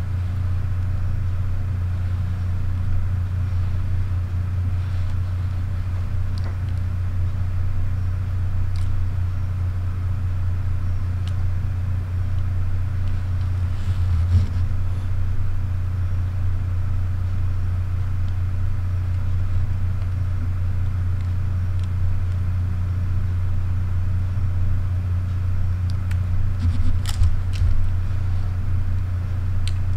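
A steady low hum with no speech over it. Near the end come a few sharp clicks, the kind made by camera dials and buttons being worked in the hands.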